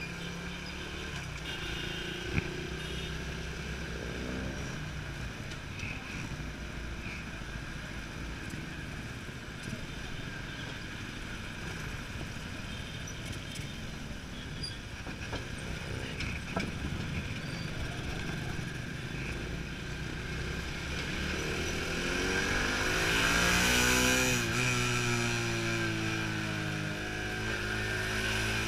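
Motorcycle engine running at low speed in slow city traffic, with other vehicles' engines around it. Late on, a larger vehicle passes close alongside: its engine rises, bends in pitch and becomes the loudest sound before easing off.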